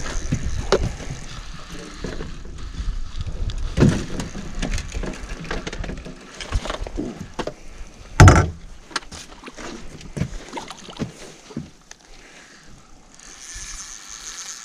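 Irregular knocks and bumps of people and gear moving about in a small fishing boat, with one loud thump about eight seconds in.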